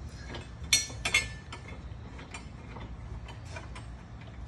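Small metal parts clinking: two sharp clinks about a second in, then a few faint ticks and taps.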